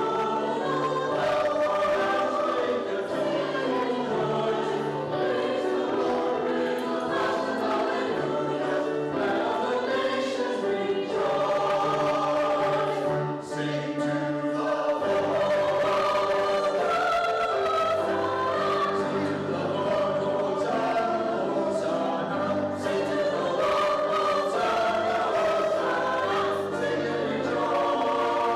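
A choir singing a hymn or anthem in sustained, flowing phrases, with a brief breath between phrases about halfway through.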